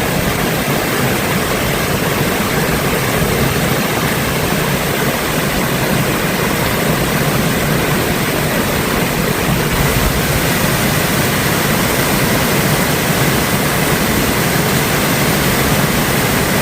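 Steady rushing of water pouring over the Cass River waterfall, an even, unbroken noise.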